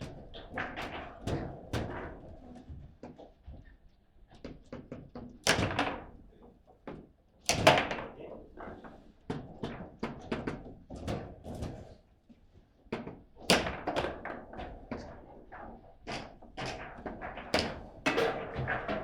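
Table football play: the ball knocked about by the rod figures in a run of quick knocks and thuds, with three harder strikes, about 5, 8 and 13 seconds in.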